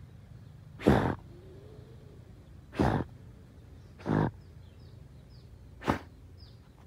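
A dog with its head pushed into a burrow blowing out hard through its nose, four loud huffs about every one to two seconds as it sniffs at the hole. Faint high chirps sound in the background near the end.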